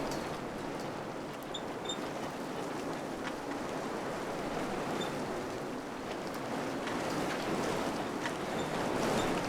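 Wind blowing steadily, a broad rushing that swells a little near the end, with a few faint small clicks mixed in.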